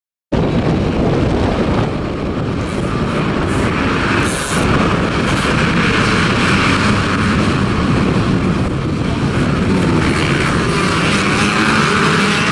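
A full field of 250 cc motocross dirt bikes at full throttle, many engines overlapping in one dense steady roar as the pack revs at the start line and pulls away. The sound comes in abruptly just after the start and stays loud.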